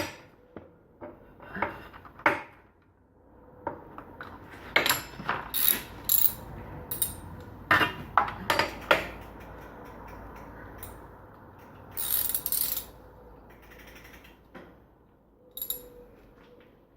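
A ratchet socket wrench clicking in short irregular runs, with knocks of metal tools against the bike's parts and a longer scraping rattle about twelve seconds in.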